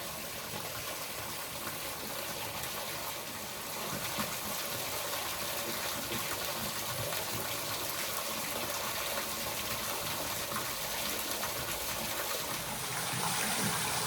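A small waterfall: a thin stream of water falling steadily and splashing, a little louder from about four seconds in.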